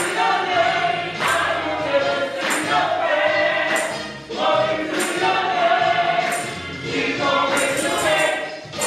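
Gospel choir singing long held notes with musical accompaniment, with a sharp percussive hit about every second and a quarter marking the beat.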